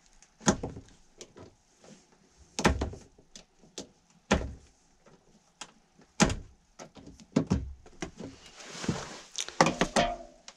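Sharp clicks and knocks of a hand tool working the ends of heavy electrical cable wires, about half a dozen separate snaps with small ticks between, then a rustling scrape with quick clicks near the end.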